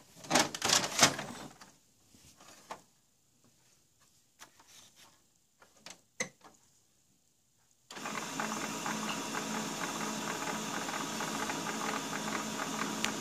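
Paper rustling and the tray clattering as the paper is handled in an HP LaserJet 1300's tray, a sharp click about six seconds in, then the printer's mechanism starts running about eight seconds in with a steady hum and rattle of motor and gears.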